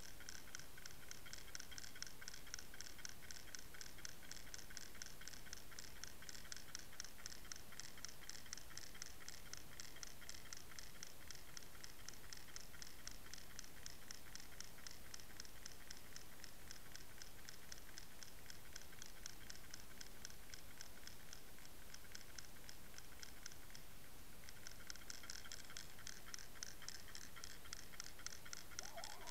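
Fast, even ticking, about five clicks a second, picked up underwater, with a break of about a second near the end.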